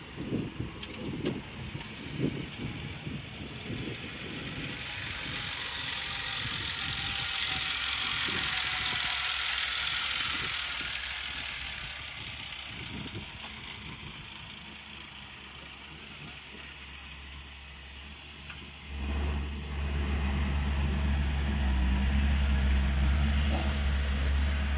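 Scattered low knocks and rumble, then a broad hiss that swells and fades, like a vehicle passing. About nineteen seconds in, a diesel engine close by becomes loud and runs steadily at a low, even pitch.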